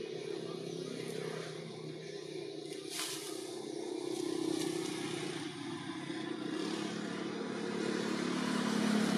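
Motor vehicle engine running, its pitch shifting and getting louder near the end, with a single sharp click about three seconds in.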